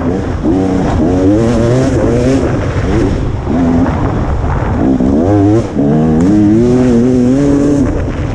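KTM 300 XC's two-stroke single-cylinder dirt bike engine revving up and down over and over as the throttle is worked on and off through tight woods singletrack, with short lulls about three seconds in and past halfway.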